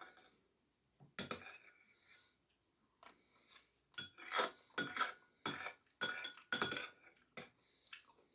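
Metal cutlery clinking against a plate: one knock about a second in, then a run of about seven quick clinks, about two a second, with a short ring after each.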